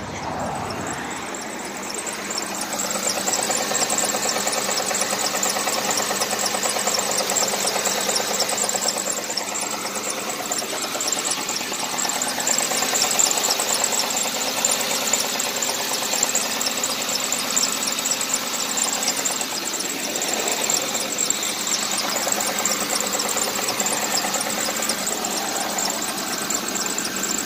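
Ford Crown Victoria's 4.6-litre V8 idling steadily with a fast, light ticking, getting louder over the first few seconds.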